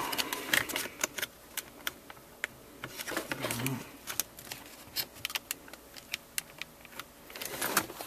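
Irregular light clicks and rattles of plastic parts and wiring connectors being wiggled by hand around a 2004 Volvo XC90's automatic gear shifter. The shifter is being checked for a loose connection because it will not go into or out of Park.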